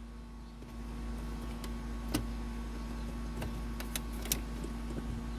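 A few sharp clicks and ticks of hard plastic dashboard trim being pried loose and handled, over a steady low hum.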